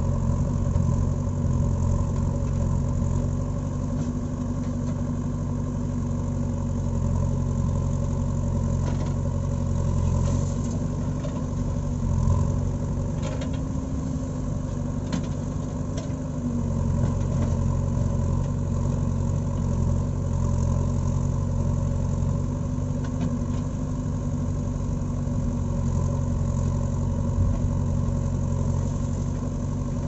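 JCB backhoe loader's diesel engine running steadily while the backhoe arm is worked, the engine note lifting a little in the middle and settling back. A few light knocks come through around the middle.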